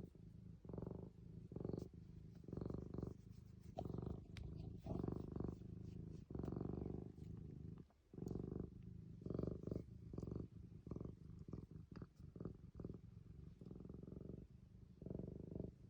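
Domestic cat purring close by, a low buzzing purr that swells and fades with each breath about once a second, pausing briefly about halfway through.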